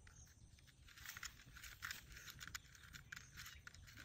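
Near silence: faint, irregular clicks and crackles over a low rumble.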